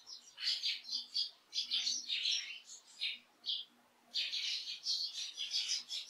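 Eurasian tree sparrows chirping: a rapid, irregular string of short, high chirps, in two busy stretches with a brief lull in the middle.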